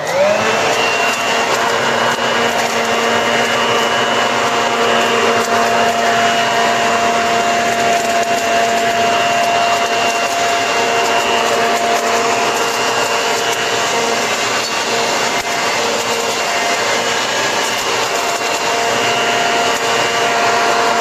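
Corded electric Toro Ultra blower vac in vacuum mode, its motor winding up in pitch at the start and then running steadily with a constant whine as it sucks up dry leaves and shreds them.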